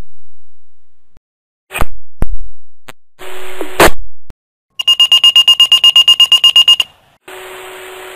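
Motorola Minitor fire pager sounding its alert: a few short bursts of radio static, some carrying a low steady tone, then about two seconds of rapid high-pitched beeping. Near the end the open radio channel hisses with a low steady tone.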